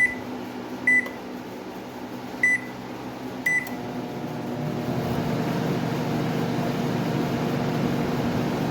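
LG microwave oven's keypad beeping four short times, then the oven starting up with a steady hum that builds over a second or so: it is running with a freshly fitted, smaller replacement high-voltage transformer.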